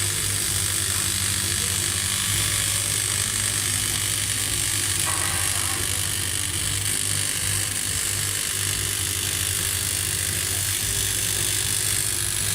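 TIG welding arc running steadily: an even electrical buzz with a constant high hiss.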